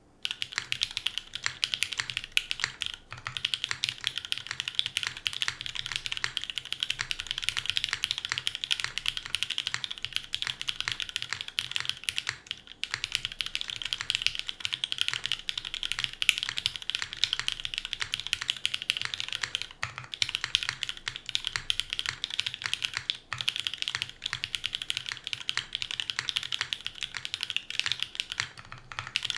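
Steady fast typing on a JJW Moment 60% mechanical keyboard with a full polypropylene plate, SP-Star Sacramento linear switches and GMK keycaps, a dense run of key clacks with a few brief pauses.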